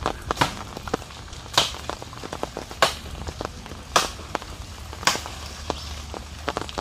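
Hand axe chopping into the thick branch of a storm-felled mango tree, with a sharp chop about once a second and small cracks and rustles between the strokes.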